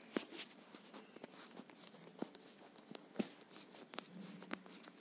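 Faint, irregular taps and light scrapes of handwriting on a phone touchscreen.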